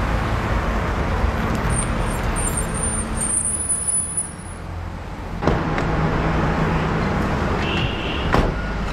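A car engine and street traffic: a taxi drives up and runs at idle, with a sharp knock near the end.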